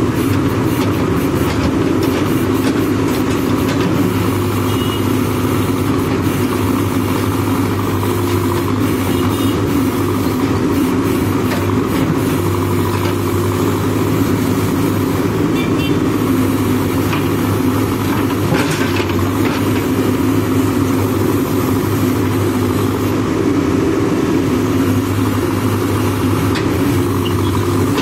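Diesel engine of a Manitou TLB 844 backhoe loader running at a steady pitch while its backhoe arm works the bucket.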